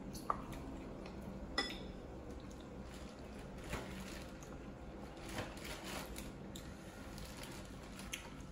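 Close-up wet eating sounds from a saucy seafood boil: mussels being squished and eaten, with a few sharp clicks scattered through.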